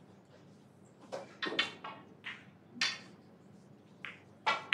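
Snooker balls clicking: a series of short, sharp knocks as the cue strikes the cue ball and the cue ball runs into the red pack, the loudest click near the end.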